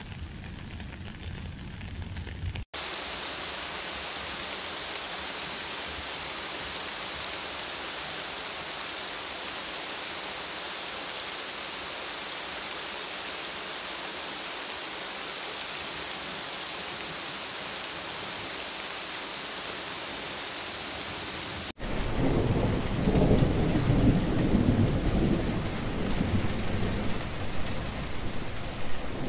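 Rain falling on puddles and wet pavement, a steady even hiss that changes abruptly twice as the clips cut. A few seconds before the end, loud, uneven rumbling thunder sets in under the rain.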